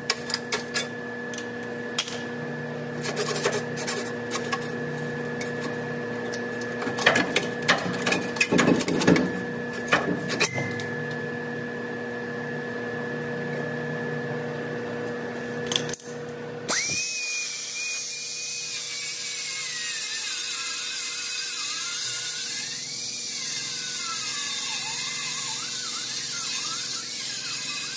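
Metal tool clinks and knocks for the first half, then a power tool starts suddenly and runs with a hiss, its whine rising and falling as it is loaded, for the last ten seconds or so.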